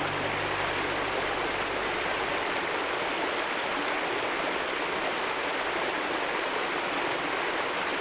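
Mountain stream pouring over a small rocky cascade: a steady rush of water.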